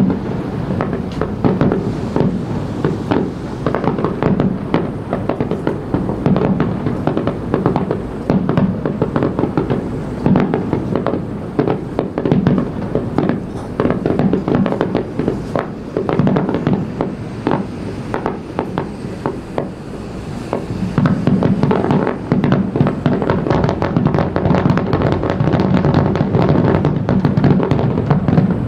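Fireworks finale barrage: aerial shells bursting in rapid succession, many reports a second, with crackling, and music playing underneath. The barrage grows louder and denser about two-thirds of the way through.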